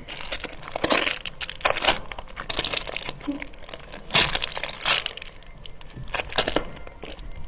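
Homemade squishies being squeezed and released by hand, a dense crackling and crinkling. There are louder squeezes about a second in and again around four seconds in.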